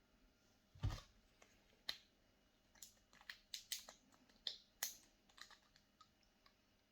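A small beard-oil bottle and its cap being handled: a soft knock about a second in, then a string of light clicks and taps.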